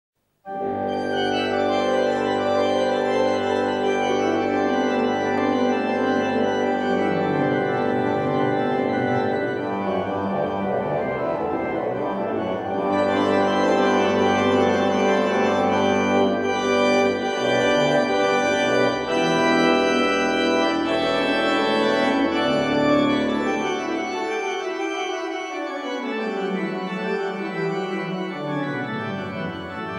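Pipe organ playing slow, sustained chords over a moving bass line; the lowest notes drop away for a few seconds near the end.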